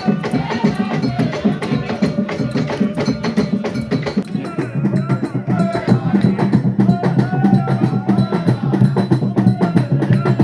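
Live traditional Central African dance music: drums and wooden percussion beat a fast, dense rhythm while voices sing over it.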